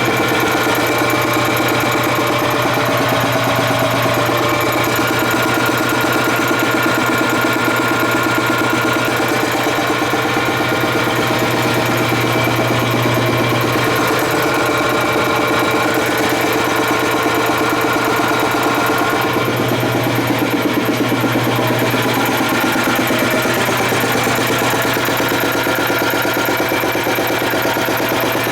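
1963 Kellogg air compressor running steadily, its piston pump beating in a fast, even rhythm. Its 1.5-horsepower electric motor has been freshly cleaned and regreased.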